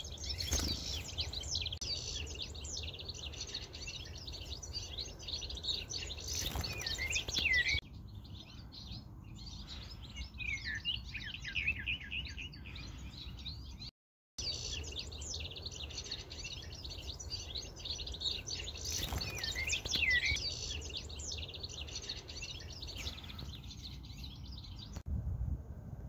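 Small songbirds chirping and calling: many short, quick high chirps, one after another, over a low rumble. The sound cuts out briefly about halfway through.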